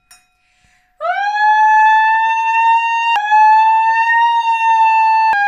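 A woman's voice holding one loud, high, steady note into a crystal wine glass, scooping up in pitch at the start, in an attempt to hit the glass's resonant frequency and shatter it. Before the note, the tapped glass rings faintly.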